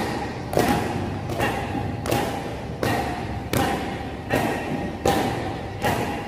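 Martial-arts kicks striking held kick pads: a regular run of sharp slapping thuds, about one every three-quarters of a second, each ringing briefly in the sports hall.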